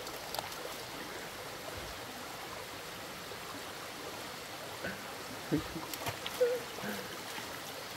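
Shallow stream running steadily over rocks, with a few light knocks and scrapes from a knife cutting fish on a stone, mostly in the second half.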